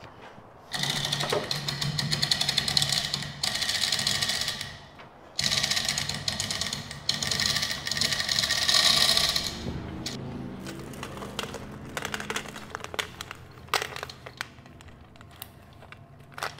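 Hand-chain hoist (chain fall) being worked, its chain rattling and clicking through the hoist in three long spells, then lighter clinks and taps of chain and metal.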